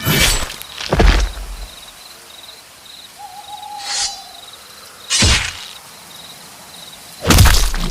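Animated-fight sound effects: a few sudden hard hits, one about a second in, one around five seconds and a longer one near the end, over a faint, evenly repeating high chirping. A single short hooting tone sounds near the middle.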